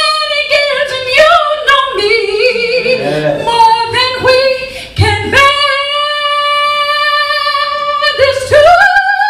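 A woman singing gospel solo through a handheld microphone, sliding through wordless runs and then holding one long steady note from about halfway through until near the end.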